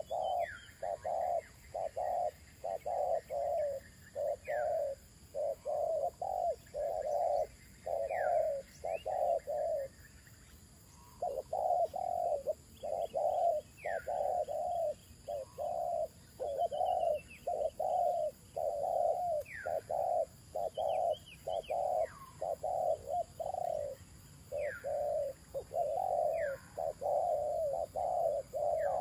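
Spotted doves (terkukur) cooing in a long run of rhythmic notes, about two a second, with a brief pause about ten seconds in. Another bird gives short falling whistles every few seconds.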